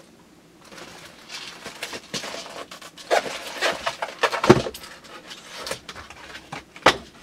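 Packaging being handled and opened: rustling and scraping, with a few short knocks and clicks in the middle and one sharp click near the end.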